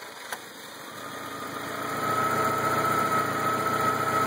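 A car engine being started on a fully charged 12-volt battery: the starter cranks briefly, then the engine catches about a second in and runs at idle, growing louder and then holding steady, with a steady high whine over it.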